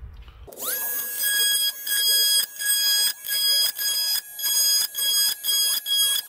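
Oscillating multi-tool with a wood-or-metal blade cutting switch holes in a plastic dash panel. It spins up with a rising whine about half a second in, then runs at a steady high pitch with short dips every half second or so as the blade works through the cut.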